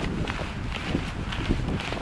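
Footsteps of a person walking at a steady pace, over a steady low rumble on the microphone.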